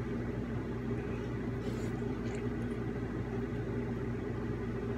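A steady low machine hum, with a few faint, soft eating noises about two seconds in.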